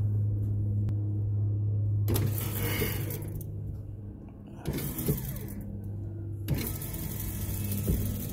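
Electric Lewmar winch motor running with a steady hum, working the cables that lower the Dufour's teak transom platform. A few short knocks come in the second half.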